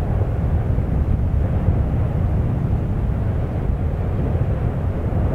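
Steady, deep rumbling roar of the erupting Fagradalsfjall volcano, heaviest in the low bass and without a break.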